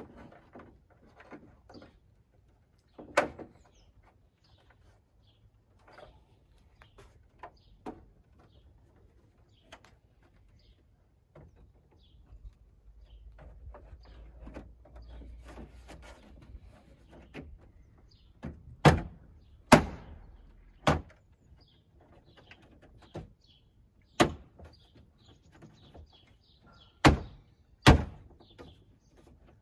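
The plastic inner trim panel of an Audi A6 C7 tailgate being pushed back onto its clips: a series of sharp, irregular knocks and snaps, with the loudest ones bunched together in the last third, and quieter handling and tapping between.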